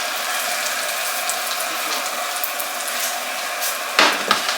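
Food frying in a pan with a steady sizzle, and two sharp knocks about four seconds in.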